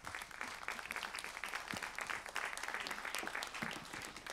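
Audience applauding: many people clapping at once, fading away just after the end.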